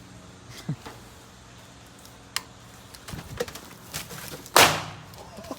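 A single firecracker bang about four and a half seconds in, a short sharp blast that dies away within half a second. Faint clicks and shuffling come before it while the fuse burns.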